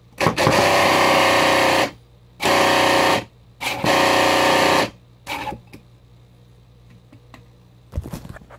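3D-printed vane-type supercharger driven by a 125-watt, 24-volt electric motor at about 3500 RPM, switched on in three short runs of one to two seconds each: a loud steady pitched hum under a noisy rush. A shorter, fainter burst follows, and a few clicks come near the end.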